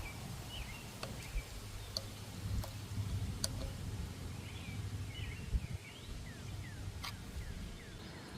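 Birds chirping in short calls over a low steady hum, with a few sharp plastic clicks as the headlight bulb socket's locking tab is worked loose.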